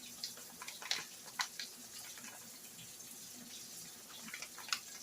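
Faint steady sizzle of a flour-and-oil roux browning in the frying pan, with a handful of small crackles scattered through it.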